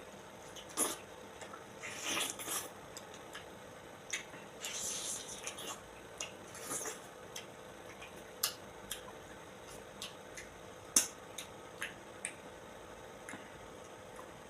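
Someone eating ripe mango: wet squishing and sucking mouth sounds with scattered sharp clicks, the loudest about eleven seconds in.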